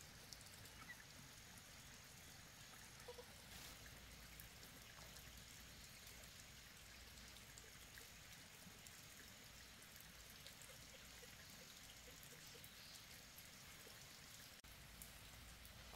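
Near silence: a faint, steady hiss with a few faint ticks.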